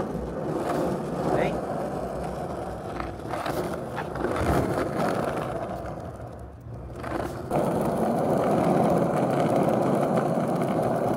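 Skateboard wheels rolling on smooth pavement: a steady rolling noise that fades for about a second past the middle, then comes back strong and even.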